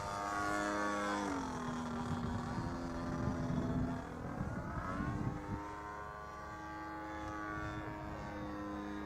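MLD 35cc petrol engine and 20 x 8 propeller of a radio-control Edge 540 aerobatic model plane in flight, the engine note dropping about a second in as the throttle comes back, then rising again past the middle.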